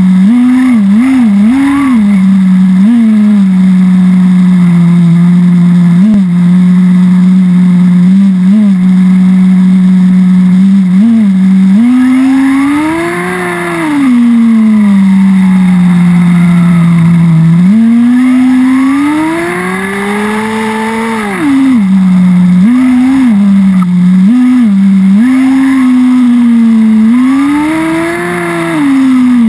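The HSP Warhead 1/10 nitro buggy's VX-18 .18 two-stroke glow engine, running on 10% nitro fuel and heard from on board. It runs loud and steady and revs up and down with the throttle: short quick blips, plus three longer climbs in pitch as the buggy accelerates, about twelve, eighteen and twenty-seven seconds in.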